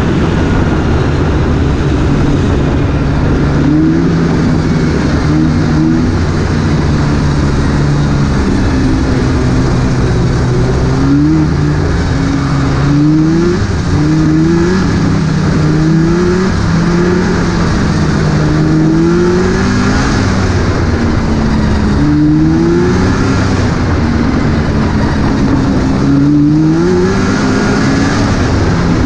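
Snowmobile engine running while riding, rising in pitch again and again as the throttle is opened and then eased off, over a steady rush of wind on the microphone.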